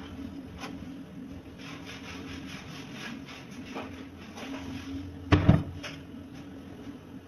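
Rustling handling noise, then a loud double knock about five seconds in as an earthenware bowl is set down on a wooden table, over a steady low hum.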